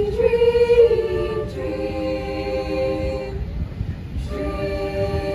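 Choir singing a cappella in held notes, the voices breaking off about three and a half seconds in and coming back in just before the end.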